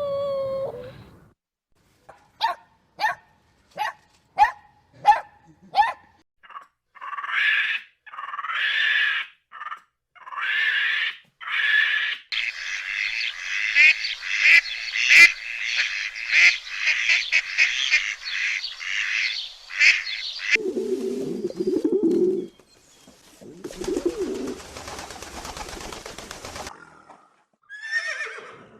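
Farm animals calling one after another. First comes a row of six short, evenly spaced calls, then honking bird calls that run into about eight seconds of a whole flock calling at once. Near the end there is a short low call, then a harsh, noisy call.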